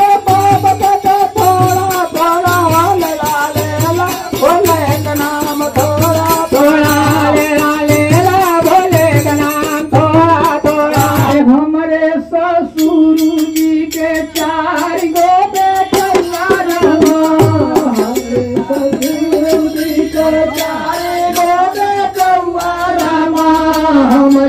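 Devotional folk song to Shiva: a man singing a wavering melody over a dholak hand drum. The drum's steady low beat comes about every 0.7 s, then thins out about halfway through while the singing goes on.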